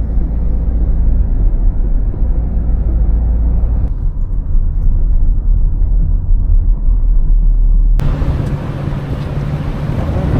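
Steady low rumble of a vehicle on the move. About eight seconds in it cuts abruptly to a brighter rushing noise.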